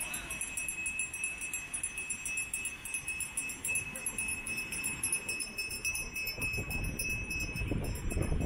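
Seashore surf and wind rushing, swelling about six seconds in, under a thin, steady high ringing tone.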